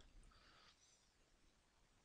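Near silence: room tone, with a faint brief rustle about half a second in.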